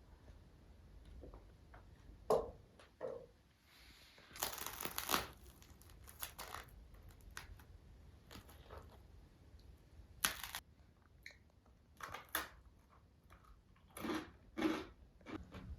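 Irregular close handling noises: short crinkling and tearing rustles and a few soft knocks, spaced unevenly, with the longest rustle about four to five seconds in.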